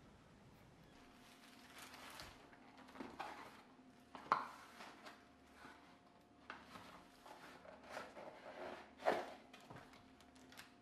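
Dishes and utensils being handled while dinner is prepared: scattered light clinks and knocks, with two sharper knocks about four and nine seconds in, over a faint steady hum.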